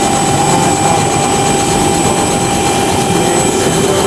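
Helicopter running steadily in flight: a loud, even rush of engine and rotor noise with a steady whine over it.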